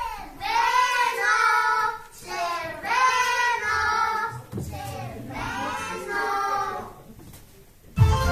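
Children singing three short phrases, each a couple of seconds long, with short breaks between them. Near the end, loud recorded music with a heavy beat starts.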